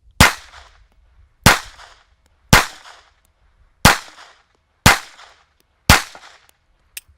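Six pistol shots from a Colt .25 ACP pocket pistol, fired at about one a second, each a sharp crack with a short ringing tail, followed by a small click near the end.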